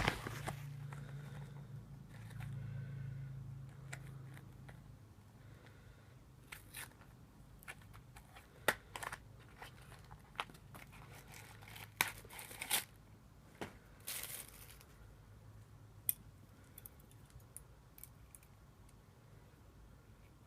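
Packaging being torn and crinkled open by hand, with scattered sharp crackles and clicks, most of them in the middle of the stretch.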